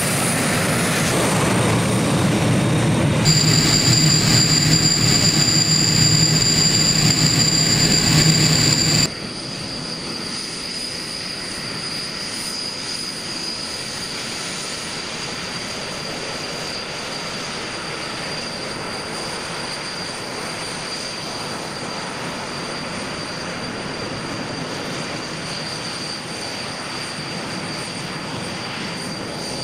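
Canadair CT-114 Tutor jets taxiing, their turbojet engines giving a steady high-pitched whine over a rush of exhaust noise. About nine seconds in the sound drops suddenly to a quieter, steady whine.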